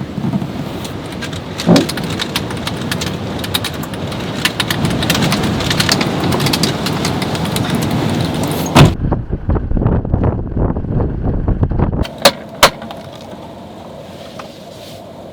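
Strong wind rushing, with many sharp ticks and knocks through it. About nine seconds in the sound turns muffled for three seconds, then two sharp knocks, and it settles to a quieter steady hiss.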